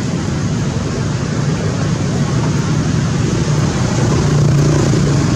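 Steady low rumble of road traffic, swelling slightly about four seconds in as a vehicle passes.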